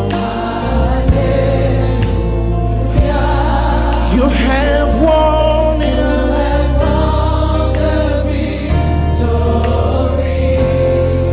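Live gospel song: a male lead singer with a choir, over steady bass notes.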